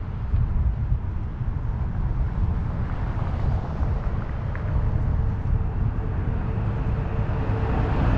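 Wind rumbling on the microphone and road noise from riding a bicycle, with a faint steady hum from about halfway through.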